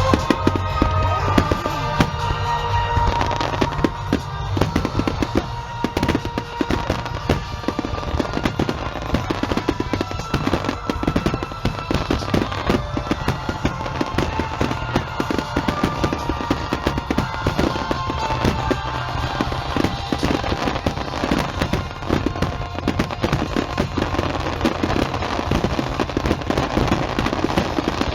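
Fireworks going off in a dense, rapid barrage of bangs and crackles, with music playing underneath.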